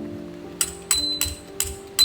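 Background music: held notes with a steady percussive beat that comes in about half a second in.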